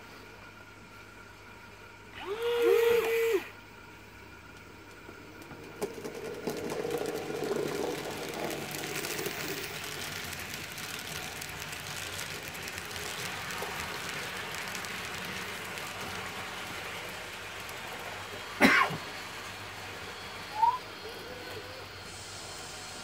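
N-scale model passenger train running past on the track, a steady rattling run of wheels and motor that swells and then holds for about ten seconds. Before it, a loud steady tone lasts about a second, and a sharp click comes near the end.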